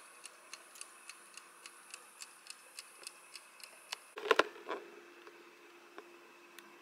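Mechanical dial timer of an air fryer ticking quickly and evenly, about three to four ticks a second. About four seconds in the ticking stops with a short clatter, and a low steady hum follows.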